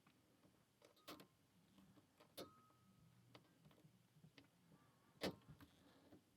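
Faint, scattered metallic clicks of a lock pick and tension wrench working the pins of a Paclock 90a Pro padlock, a few seconds before it opens. About two and a half seconds in one click leaves a brief ringing tone, and the loudest click comes a little past five seconds in.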